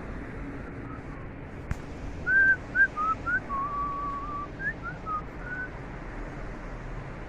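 A person whistling a short tune through pursed lips: a run of quick notes sliding up and down, with one longer held note in the middle, over a steady rushing background noise.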